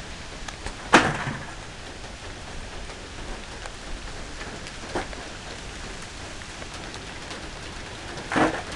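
Steady rain falling during a hurricane's approach. A sharp knock comes about a second in, with fainter knocks around five seconds in and near the end.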